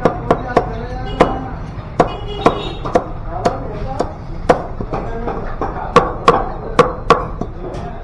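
Butcher's cleaver chopping raw chicken into pieces on a wooden block: sharp, irregular strikes about twice a second, some harder than others.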